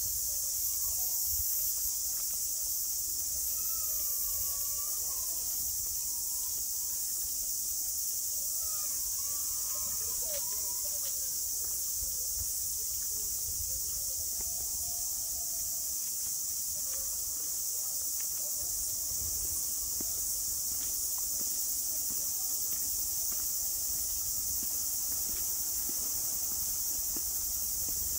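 Steady, high-pitched chorus of cicadas, with a bird calling in short sliding notes a few times in the first half.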